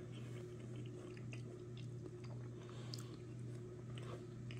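Faint chewing as a man eats a mouthful of soft avocado, with a few small clicks scattered through. A steady low hum runs underneath.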